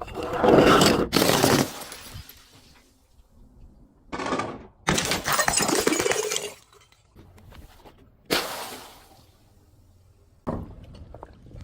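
Glass bottles shattering, one break after another: a long crash at the start, another about four to six seconds in, a sharp one a little after eight seconds and a smaller one near the end.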